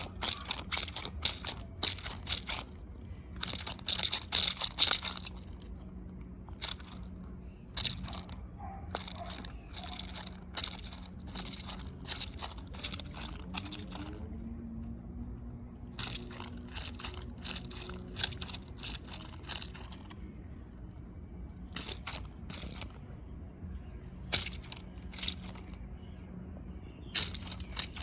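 Crunchy anti-stress dinosaur squeeze toy being squeezed by hand, giving irregular clusters of crackling crunches with short pauses between them.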